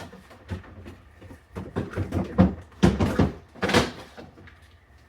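Kitchen clatter: a run of knocks and bumps from things being handled, such as a cupboard or food containers. It is loudest around the middle, with a single knock right at the start.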